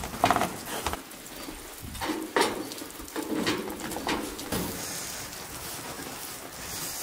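A metal spoon stirring and scraping through a dry flour mixture in a large metal bowl, with a few sharp clinks of spoon against bowl in the first half.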